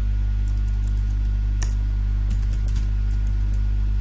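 Computer keyboard typing: scattered single key clicks, faint under a steady low electrical hum that is the loudest sound throughout.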